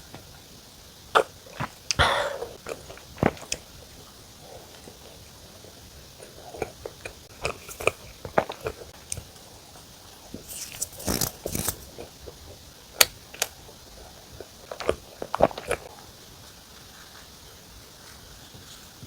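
Close-miked biting and chewing of soft mocha bread filled with mocha cream: scattered sharp mouth clicks and smacks, with a denser cluster about eleven seconds in.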